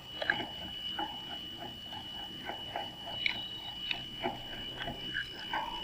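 Screws being tightened on the plastic LNB adapter clamp: a run of small, irregular clicks, creaks and short scrapes of metal on plastic. A steady faint high tone runs underneath.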